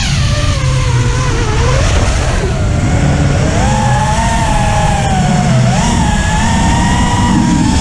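FPV quadcopter's Lumenier brushless motors and DAL propellers whining in flight, the pitch sliding up and down with the throttle, over a steady low rush of wind and frame vibration picked up by the onboard camera.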